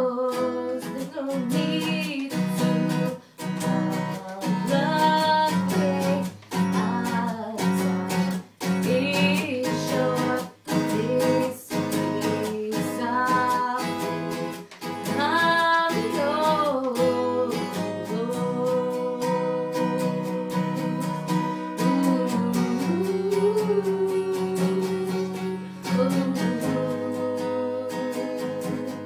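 Acoustic guitar strummed in a steady rhythm while a woman sings the melody over it.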